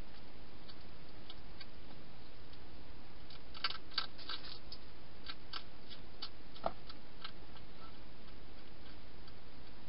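European hedgehog eating inside a plastic feeding box: a scatter of small sharp crunching clicks, thickest in the middle stretch with one louder click, over a steady hiss.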